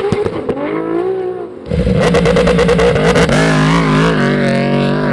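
High-revving race engines at a drag start line. First the 2JZ-powered Toyota Supra's revs rise and fall just after its burnout. Then, after a sudden change about a second and a half in, the Aprilia RSV4 superbike's V4 is held at high revs and blipped up and down while staged.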